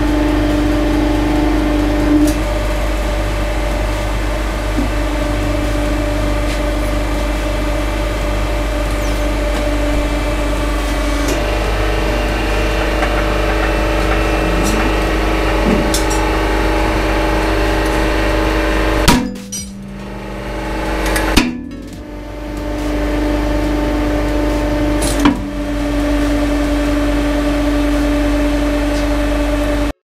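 Hydraulic press running with a steady hum from its pump while the ram crushes a padlock, with a few sharp cracks as the lock gives way. The loudest crack comes about two-thirds through, where the hum cuts out briefly twice and builds back up.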